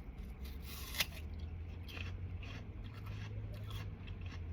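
A person chewing food with the mouth close to the mic, faint crunches about every half second, and one sharp click about a second in. A steady low hum runs underneath.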